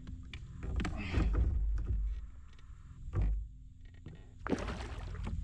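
A smallmouth bass being played from a kayak: several short handling and water noises, about one, three and four and a half seconds in, over a steady low rumble.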